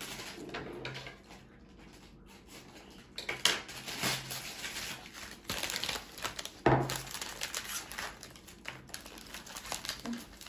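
Small candy wrappers crinkling and tearing as they are unwrapped by hand, in irregular rustling bursts, with one sharper thump about two-thirds of the way through.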